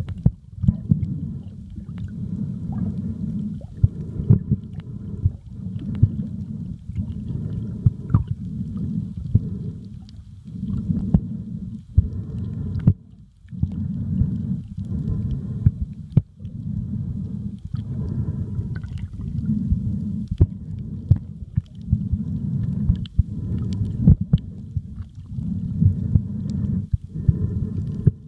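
Underwater sound picked up by a submerged camera: a muffled low rumble of water moving around the camera, in surges a second or two long with brief lulls, with scattered sharp clicks throughout.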